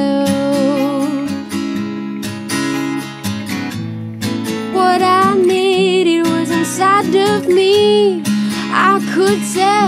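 Live acoustic music: acoustic guitars strumming chords under a woman singing long, wavering notes, fuller from about halfway through.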